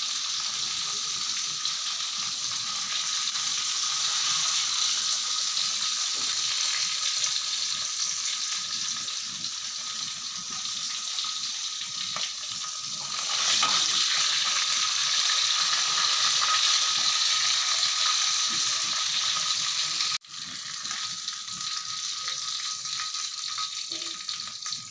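Fish frying in hot oil in a wok over a gas burner: a continuous sizzle. It grows louder about halfway through, drops out for an instant, then carries on a little quieter near the end.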